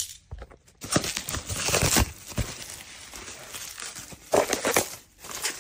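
Plastic bubble wrap crinkling and crackling as hands pull it off a small boxed camera. The handling comes in irregular bouts, heaviest about a second in and again near the end.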